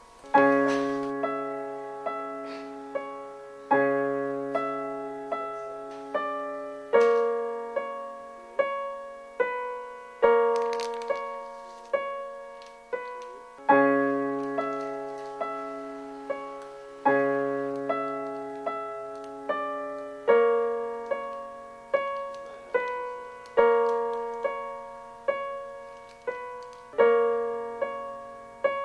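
Piano music: a slow phrase of struck notes that ring and fade, starting over about every three seconds.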